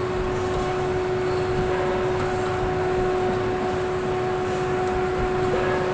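Industrial machinery running with a constant mid-pitched hum and a fainter tone an octave above it, over a low rumbling noise.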